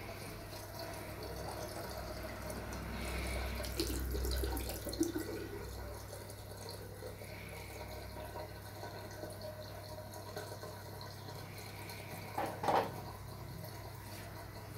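Water from a tap running into a bathroom sink, with handling noise from hands working a cat's wet fur, louder for a few seconds early in the stretch. A brief louder sound comes near the end.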